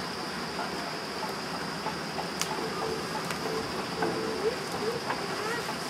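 Steady high-pitched insect drone over an even hiss of outdoor noise, with a few faint short pitched sounds in the second half and a couple of soft clicks.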